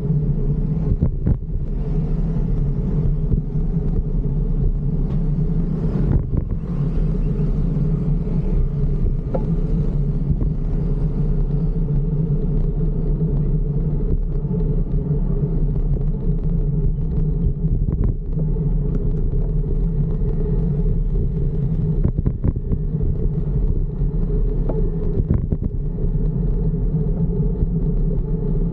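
Steady low rumble of a fixed-gear bicycle ride, tyre and wind noise, with a few scattered knocks.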